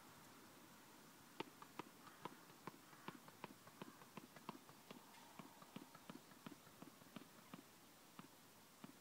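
Light, faint taps in a quick uneven series, about four a second, starting about a second and a half in: footsteps on a hard tennis court and a tennis ball being bounced before a serve.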